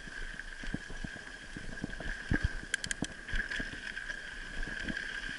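Mountain bike riding over a dirt trail, heard from a camera mounted on the bike: tyres rolling, with knocks and rattles over bumps under a steady high buzz. A quick run of sharp clicks comes about halfway through.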